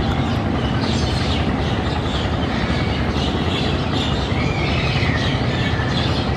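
Steady low drone of a river passenger launch's diesel engines running at speed, with birds chirping in short strokes over it.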